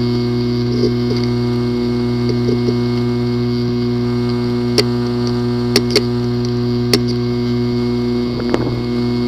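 A steady low electrical or motor hum, with a few sharp clicks about five to seven seconds in.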